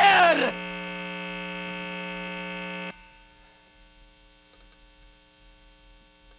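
A rock band's final sung note and chord cut off about half a second in, leaving a steady electrical buzz of amplifier hum. The buzz drops off suddenly about three seconds in to a faint hum.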